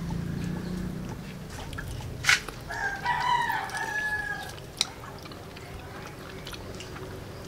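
A rooster crows once, a drawn-out call of about two seconds near the middle. Two sharp clicks come just before and just after it.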